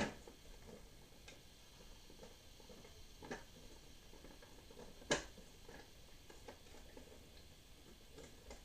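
Hard plastic parts of a Legacy Titanus toy being handled: a few sharp clicks and knocks, the loudest at the very start and about five seconds in, with faint small ticks between.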